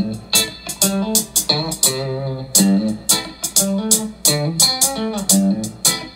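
Pop-rock music with a steady drum beat, bass line and guitar, played back through a Gradiente Piccola aluminium-cabinet bookshelf speaker.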